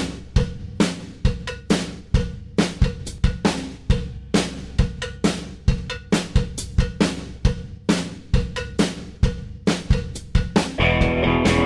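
Background music: a rock drum-kit beat of kick, snare and hi-hat playing alone in a steady rhythm. Other pitched instruments come in about a second before the end.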